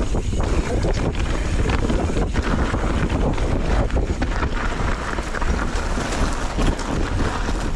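Wind noise on an action camera's microphone over the steady rumble and rattle of a Knolly mountain bike rolling down dirt singletrack, with short knocks here and there as it goes over roots and rocks.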